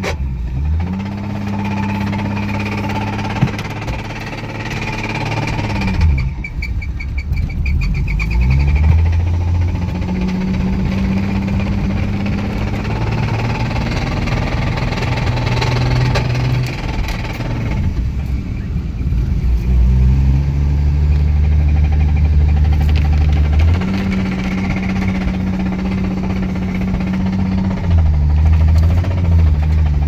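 Toyota 1JZ straight-six engine running under load while driving, heard from inside the cabin, its note rising and falling several times with the revs. It knocks, which the owner takes for a very serious rod knock.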